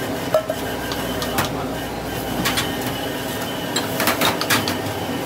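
Brewed tea poured in a stream from a steel pitcher through a strainer into a large steel pot of milk, with short sharp clinks of steel utensils several times over a steady rushing background.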